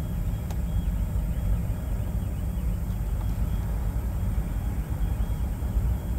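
Steady low engine rumble, with a faint click about half a second in.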